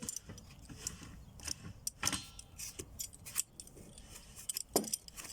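Scattered metallic clinks and rattles of hand tools and wheel fittings being handled, with a few sharper knocks among them.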